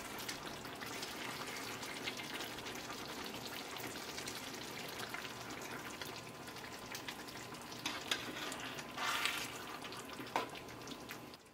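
Chicken thighs in tomato sauce sizzling steadily in an enameled cast-iron braiser while metal tongs turn the pieces over, with a few louder wet stirring sounds near the end.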